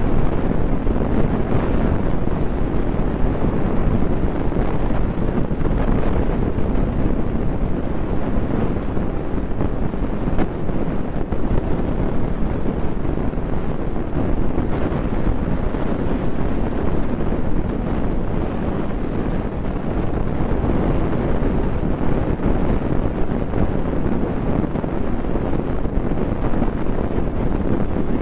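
Steady rushing, rumbling noise with no distinct events, heaviest in the low range: wind buffeting the microphone.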